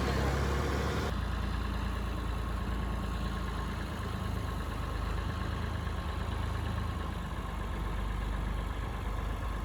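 A large engine running steadily at low speed, with a constant low hum; a brighter, noisier layer above it drops away about a second in.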